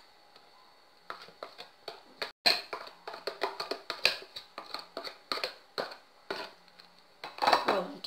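Set gelatin being scraped out of a plastic tub into a plastic blender jar of chopped papaya: a run of irregular taps, clicks and scrapes of plastic on plastic.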